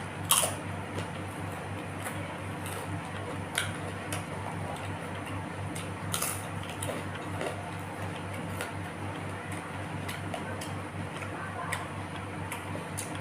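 Close-up eating sounds: small wet clicks from chewing and the mouth, with a few sharper clicks, over a steady low hum.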